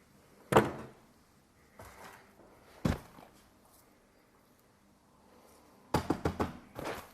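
Clicks and knocks of a 1:24 scale diecast model car being handled: a sharp click about half a second in, another near three seconds, then a quick run of small clicks near the end.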